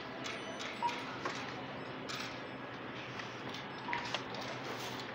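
Ambience inside a large retail store: a steady background hum with scattered clicks and clatter, and two short beeps, one about a second in and one near four seconds.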